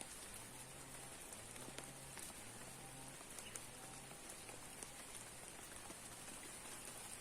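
Rain falling, a faint steady hiss with scattered individual drops ticking.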